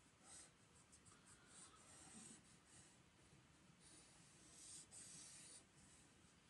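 Faint scratching of a felt-tip marker drawn across sketchbook paper in a series of short strokes, with a longer stroke about two thirds of the way through.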